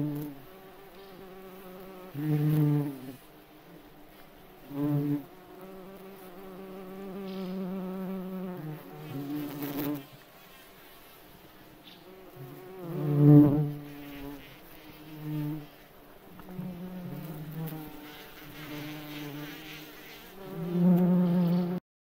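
Insect buzzing: a low-pitched drone that comes in repeated bursts, some brief and some lasting a few seconds, swelling and fading in loudness. It stops abruptly just before the end.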